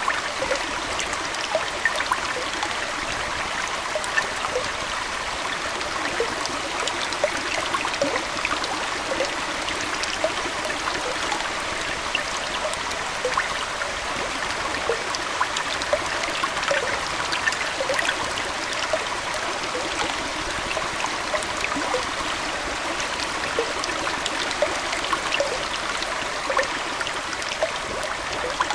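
Aquarium water trickling and bubbling steadily, like a small indoor stream, with many small bubble pops and drips scattered through it.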